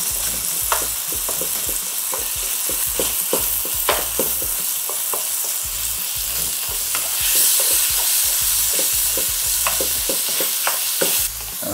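Beef patties sizzling in oil in a frying pan while a wooden spoon breaks them up, knocking and scraping against the pan several times a second. The sizzle grows louder a little past halfway and drops just before the end.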